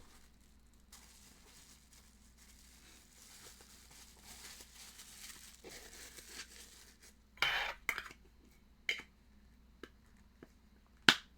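Packaging and collectible boxes handled by hand: soft rustling, then a few sharp clicks and knocks, the loudest near the end.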